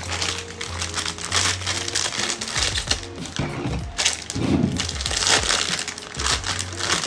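Plastic instant-noodle packets crinkling and rustling as they are handled and opened, with background music underneath.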